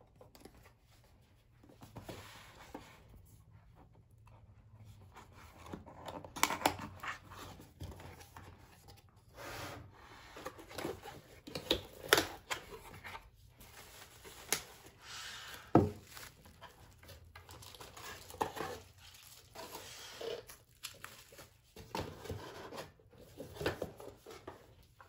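Hands unboxing a plastic-wrapped cup and saucer from a paperboard box: crinkling and rustling of the plastic wrap and the box flaps, with scattered sharp taps and knocks as the pieces are handled and set down. It starts about two seconds in.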